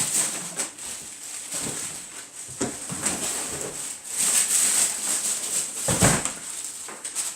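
Packaging being handled during an unboxing: irregular rustling and scraping, with a heavy thump about six seconds in.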